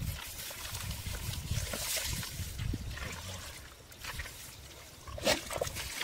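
Wet mud and shallow water being worked by hand and boot: squelching, sloshing and trickling, with one louder sudden squelch about five seconds in.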